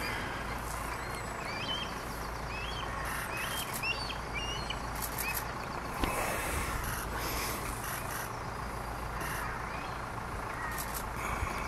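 Outdoor ambience of many short chirping bird calls, thickest in the first half, over a steady low rumble, with a single sharp knock about six seconds in.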